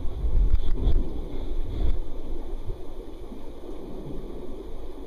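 Creek water running over rocks as a steady rushing hiss, with low rumbling thuds on the microphone during the first two seconds.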